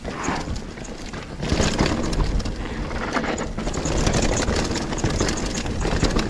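Full-suspension mountain bike descending a rough, steep trail at speed: tyres rumbling and knocking over roots and rocks, the bike's parts rattling, and wind rushing on the microphone.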